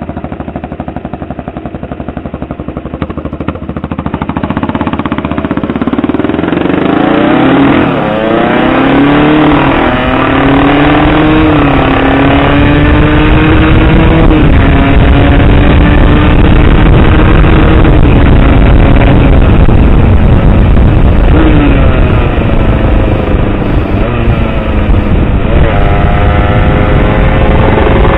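Aprilia SX125's two-stroke single-cylinder engine recorded on board while riding, pulling up through the gears. The engine note climbs and drops back at each shift, holds fairly steady, then climbs again near the end, with wind rushing over the microphone as speed builds.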